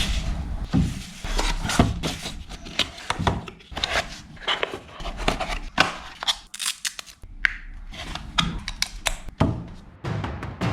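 A box being handled and opened: irregular rustling, tearing and sharp clicks and knocks of packaging.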